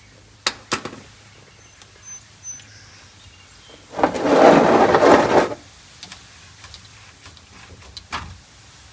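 A ratchet set down on a concrete floor with a couple of sharp clicks, then a drain pan scraped across the concrete for about a second and a half, and a single knock near the end.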